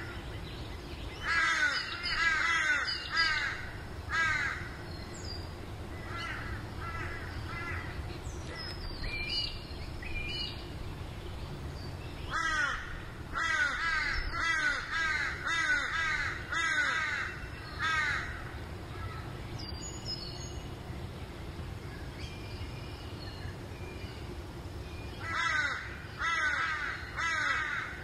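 A bird giving harsh, crow-like cawing calls in bouts of rapid, falling notes, several a second. The longest run is in the middle and another comes near the end.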